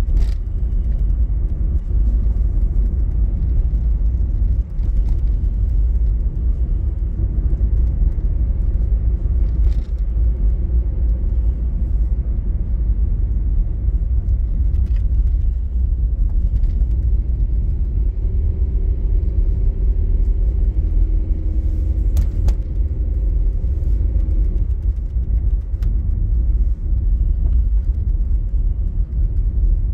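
Inside a moving car's cabin: a steady low rumble of the car's engine and tyres on the road. A faint hum joins in for several seconds past the middle, and there are a few faint clicks.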